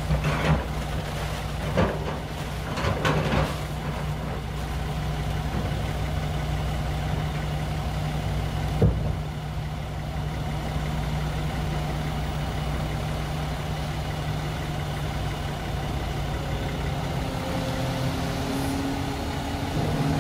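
Hydraulic excavator's diesel engine running steadily. A few knocks come in the first few seconds, and one sharp knock about nine seconds in.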